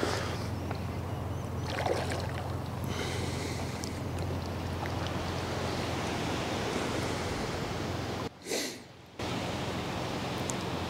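Steady wind noise on the microphone at the water's edge, with a constant low hum beneath it; it drops away briefly about eight seconds in.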